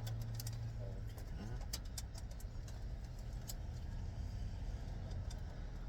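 Steady low rumble, with scattered short clicks and taps.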